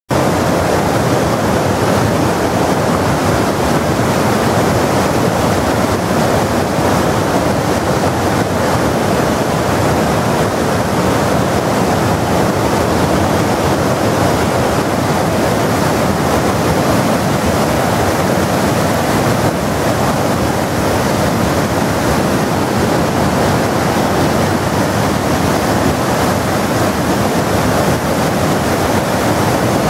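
Aygır waterfall's water falling and splashing steadily: a loud, even rush of water with no break.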